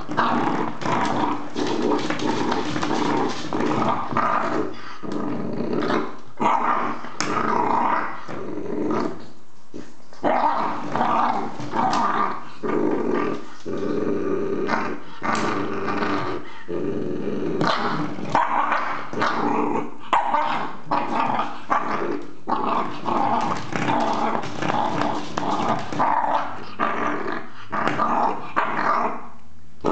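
English Bull Terrier puppy growling almost without pause, with short breaks and some barks, as it worries a metal coiled-spring door stop, with frequent sharp clicks.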